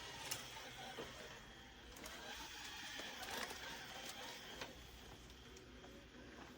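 Narwal Flow robot vacuum-mop running: a faint steady mechanical whine with a few sharp clicks and knocks scattered through it.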